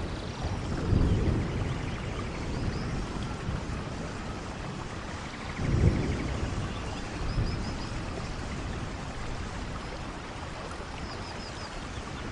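Steady heavy rain with low thunder rumbles, one about a second in and a louder one about six seconds in. A few faint high chirps sound over the rain.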